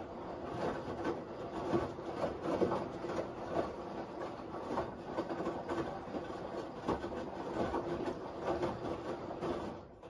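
Front-loading washing machine running, its drum turning slowly with wet laundry and making a steady mechanical whir with irregular clatter. The sound cuts off abruptly near the end.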